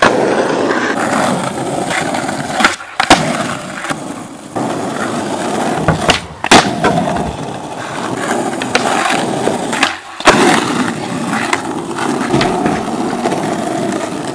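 Skateboard wheels rolling on asphalt, with several sharp clacks of the board striking the ground, about four in all, spread through the run.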